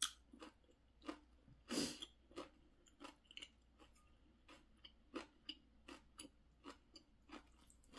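Close-miked chewing of ramyeon noodles, with scattered small clicks and taps as wooden chopsticks work the noodles in the bowl, and one longer noisy sound about two seconds in.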